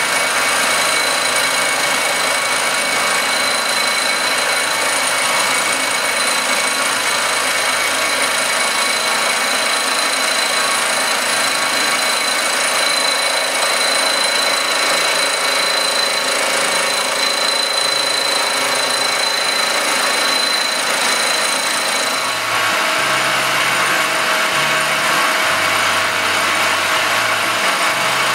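Circa 1948 Gorton 8-1/2D vertical milling machine cutting an aluminum casting: a steady, loud machining noise with a high, steady whine over it. About three-quarters of the way through the whine stops while the machine keeps running.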